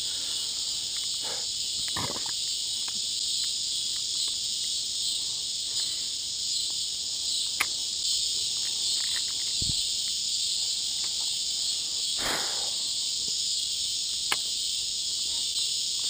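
A cicada's loud, steady, high-pitched buzzing drone, with a few faint clicks and a brief swish about twelve seconds in.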